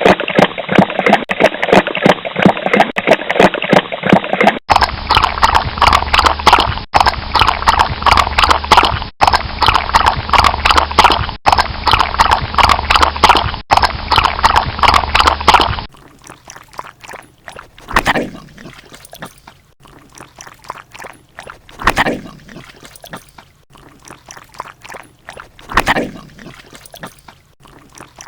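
Dogs lapping water: a rapid, wet, rhythmic lapping from three different dogs in turn. The first gives way to a second, brighter one about five seconds in. About sixteen seconds in a third, quieter dog takes over, its lapping swelling louder every four seconds or so.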